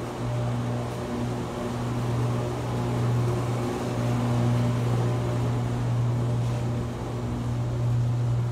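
A steady low mechanical hum with a light noisy wash behind it.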